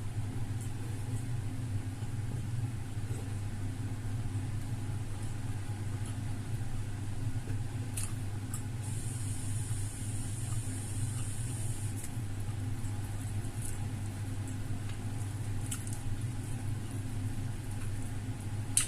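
A steady low hum, with a few faint short clicks over it.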